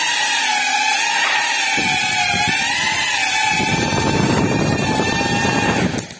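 Small GEPRC FPV quadcopter's motors and propellers whining, the pitch wavering with throttle, with gusty rushing prop wash as it flies close. The sound cuts off abruptly near the end as the drone comes down and its motors stop.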